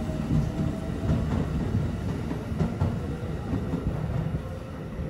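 Limited express electric train running through the station without stopping, a steady rumble with a few clicks from the wheels about midway. The rumble fades as the last cars pass.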